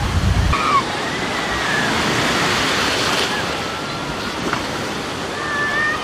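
Rough sea surf breaking and washing over the shallows in a steady hiss, with a low rumble of wind on the microphone for about the first half-second.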